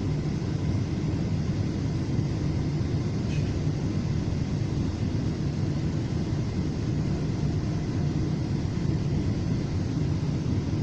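Steady low rumble and hum inside a FrontRunner commuter train car standing at a station platform, unchanging throughout.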